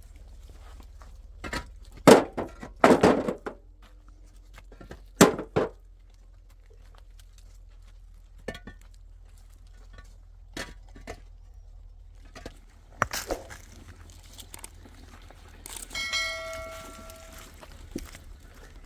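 A few knocks and clattering thuds of handled objects, with scattered small clicks, then about sixteen seconds in a struck metal object rings briefly with a clear tone.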